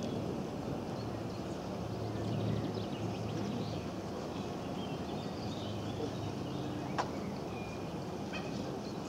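Mandarin duck drakes courting a female, giving many short high calls over a steady low rumble, with one sharp click about seven seconds in.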